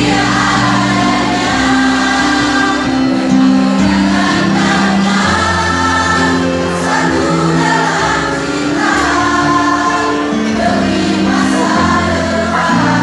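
A mixed choir of women and men singing together, several voices at once over long held low notes.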